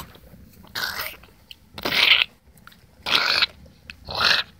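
A kitten pawing and biting at the camera, her fur and mouth rubbing right on the microphone. This gives four short, scratchy, crunching bursts.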